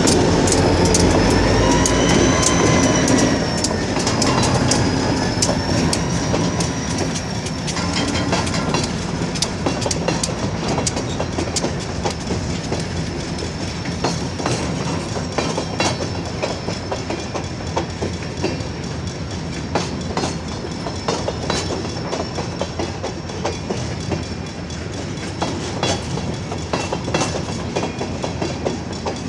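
A train rolling past, its wheels clacking over the rail joints with a high, wavering squeal above the clatter. It is loudest for the first several seconds, then settles into a steadier run of railcar clacks.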